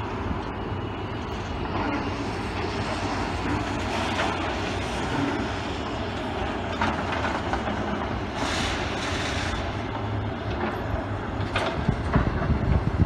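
Diesel engine of a tracked demolition excavator running steadily, with scattered knocks and crunches of concrete and steel as the stand is broken up. A louder, uneven rumble takes over near the end.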